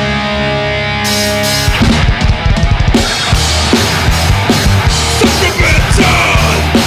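Thrash metal band playing with distorted electric guitars, bass and drum kit. A held guitar chord rings for the first second or so, then cymbals and fast, driving drums come in about two seconds in under the riff.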